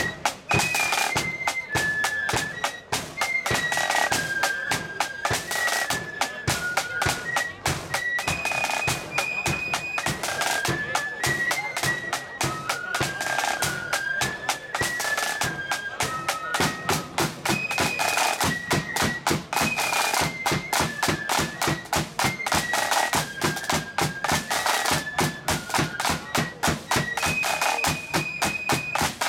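Marching band playing: a single high melody line, stepping up and down, over rapid side-drum rolls and a steady bass drum beat.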